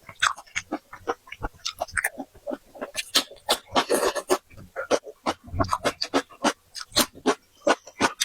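Close-miked eating of seafood: rapid wet chewing and lip-smacking clicks, with a longer sucking slurp about four seconds in.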